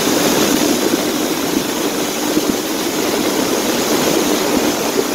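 Boat motor running steadily under a continuous rushing hiss.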